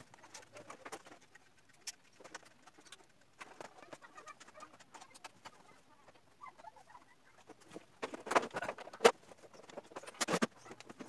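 Plastic front casing of a split air conditioner's wall-mounted indoor unit being fitted back on by hand: scattered light clicks and rattles, then a cluster of louder knocks and snaps about eight to ten and a half seconds in as the casing is pushed and clipped into place.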